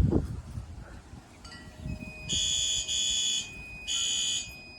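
A fire alarm pull station is pulled with a low thump, and about two seconds later a horn strobe sounds three short blasts in a row: two close together, then a third after a brief pause. A thin, steady high-pitched tone comes in just before the blasts and carries on.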